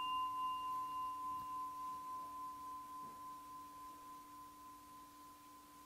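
A small meditation bell, struck just before, ringing out as one long steady tone that slowly fades with a gentle regular waver; its higher overtones die away in the first couple of seconds. It is rung as the object of a listening meditation.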